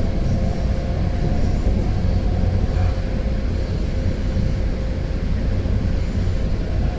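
MBTA Green Line light rail train running between stops, heard from inside the car: a steady low rumble of wheels on rail and traction motors, with a faint steady whine.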